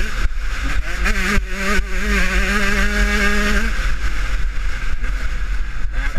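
Husqvarna TC125 two-stroke motocross engine under way at speed, with wind buffeting the onboard microphone. The engine note climbs, holds steady for a couple of seconds, then drops away about two thirds of the way through.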